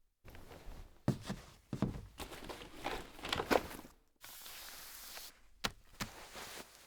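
Studio foley effects: a string of short knocks and scuffs, then a steady hiss lasting about a second, then two sharp clicks.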